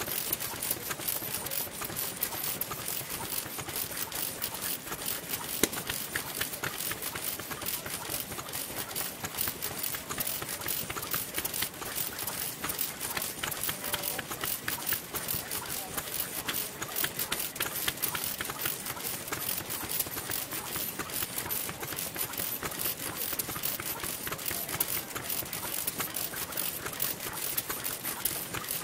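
Old Noda stationary petroleum engine running, a fast, steady mechanical clatter of rapid ticks, with other old engines running alongside.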